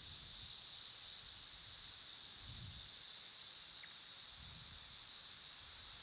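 Steady, high-pitched chorus of insects, with a couple of soft low rumbles of wind on the microphone.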